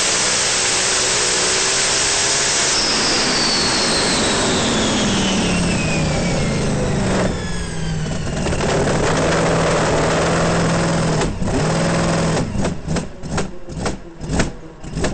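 A loud engine running with a dense roar. Its pitch falls away over several seconds into a steady low hum, then a quick string of short, sharp bursts follows near the end.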